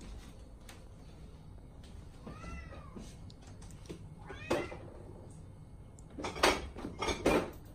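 Black domestic cat meowing several times, each call rising then falling in pitch; the calls come louder and closer together near the end.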